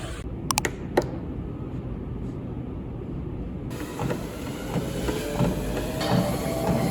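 Steady low rumble of a moving vehicle, with a few sharp clicks about half a second to a second in.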